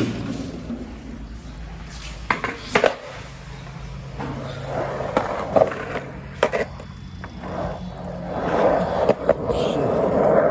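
Skateboard wheels rolling, a steady rumble broken by several sharp clacks.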